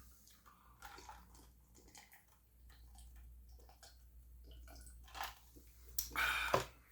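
Close-miked chewing with wet mouth clicks and smacks, with two louder noisy sounds about five and six seconds in.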